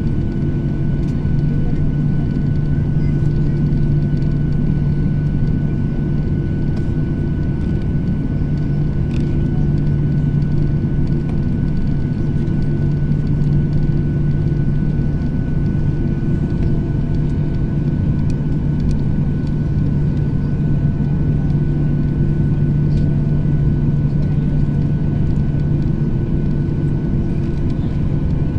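Steady cabin noise of a jet airliner taxiing after landing, its engines at idle: a low, even hum with a thin steady high tone above it.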